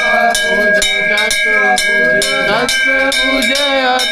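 Temple bells struck over and over, a few strikes a second, their steady ringing tones overlapping, over a crowd of voices shouting.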